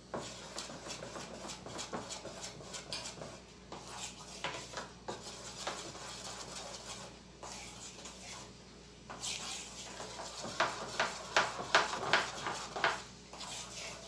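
Spoon stirring cake batter by hand in a bowl, soft scraping with small clicks against the bowl as baking powder is mixed in. The strokes get louder and quicker from about nine seconds in.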